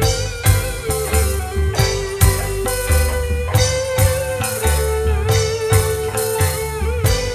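Band music: a lead electric guitar playing a held, wavering melody over a steady beat of bass and drums.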